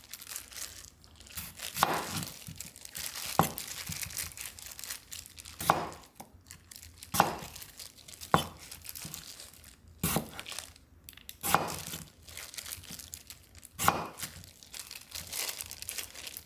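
Chef's knife slicing through pieces of radish kimchi on a wooden cutting board, about eight cuts a second or two apart, each ending in a sharp knock of the blade on the board. Between the cuts there is a faint crinkling rustle of a plastic glove.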